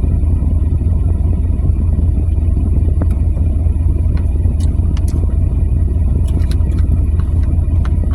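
Steady low rumble of a car idling, heard from inside the cabin, with a few light clicks.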